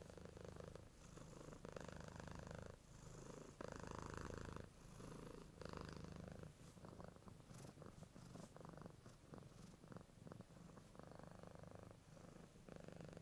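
A cat purring softly in rhythmic cycles of about a second each, thinning to faint crackles for a few seconds around the middle.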